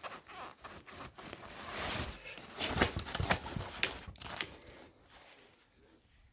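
Osprey Aether 60 backpack creaking and crunching in irregular strokes as it is flexed by hand: the frame wire rubbing at its ends inside the pack. The creak persists even with tape wrapped around the wire's end. The creaks are busiest in the middle and die away near the end.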